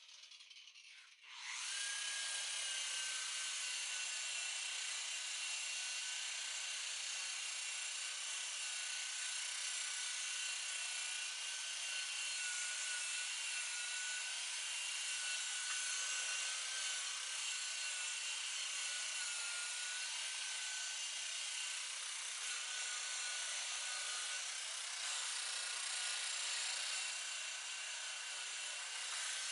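Electric buffer switching on about a second in and running steadily, with a whine that wavers slightly in pitch as the pad works the boat's oxidized fiberglass hull.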